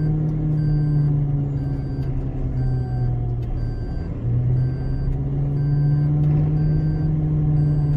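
Steady low motor hum from an off-road vehicle, its pitch sagging about four seconds in and then climbing back. A faint short electronic beep repeats about once a second.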